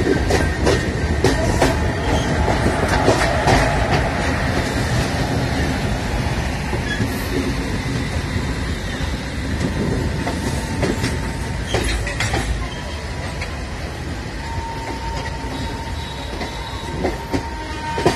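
Train wheels rolling on the track with a steady rumble, clicking irregularly over rail joints, with a faint thin wheel squeal; the sound grows a little quieter toward the end.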